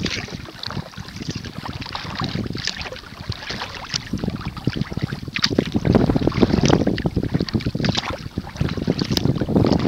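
Wind buffeting the microphone over water lapping and splashing at a kayak's bow as it is paddled, with a splash from the paddle strokes recurring at a steady pace.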